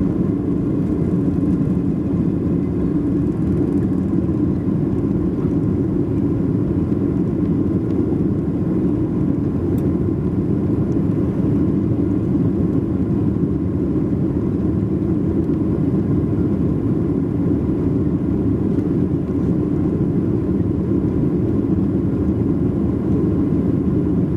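Boeing 737's jet engines at takeoff thrust with rushing airflow, heard inside the passenger cabin during lift-off and climb-out: a steady, even low noise with a faint high tone above it.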